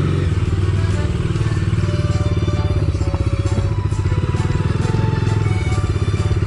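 Bajaj Dominar 250's single-cylinder engine running at low revs as the motorcycle pulls away slowly, the engine still cold. Background music plays over it.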